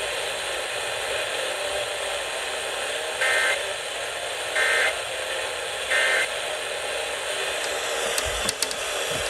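Three short bursts of Emergency Alert System SAME data tones, evenly spaced about a second apart, over steady radio hiss: the end-of-message signal that closes an EAS alert. A few sharp clicks and two low thumps follow near the end.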